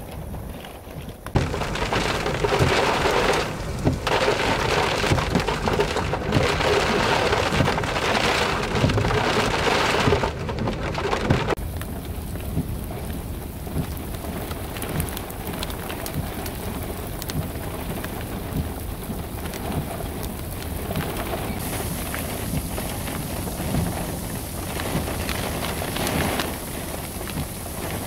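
Heavy rain pouring down in strong wind, with a low rumble underneath. The downpour comes in much louder about a second in, then drops to a steadier, softer rush a little before halfway.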